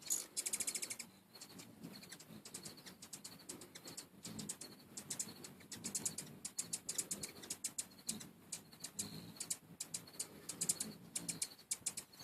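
Hummingbirds at a feeder chittering: rapid, high, ticking chip calls throughout, densest and loudest in a burst right at the start, over the low hum of hovering wings.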